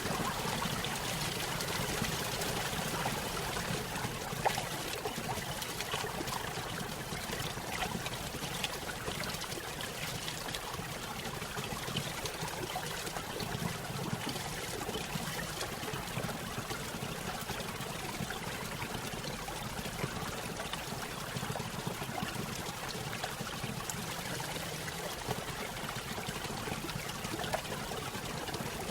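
Small stream running over a little waterfall: steady trickling and splashing of water with constant small gurgles.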